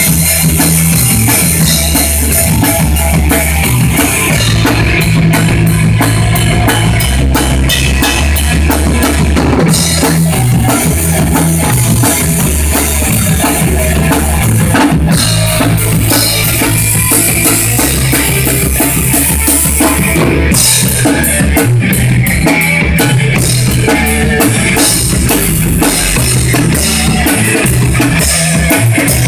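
Loud rock music: a drum kit with bass drum and cymbals over a moving bass line, with guitar.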